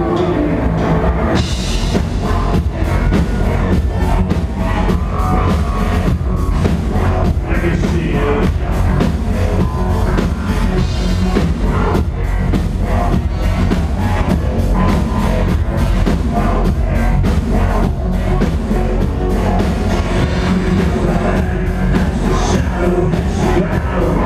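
Live industrial band playing loud through a club PA, with a steady beat, heavy bass, drums and synthesizers.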